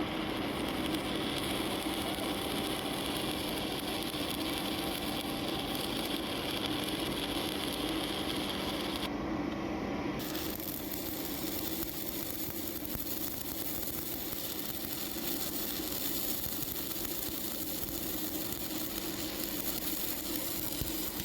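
Stick welding arc burning steadily as an E7018 low-hydrogen electrode (4.0 mm, about 175 A) is run on steel plate: a continuous hiss and crackle. The sound changes briefly about ten seconds in.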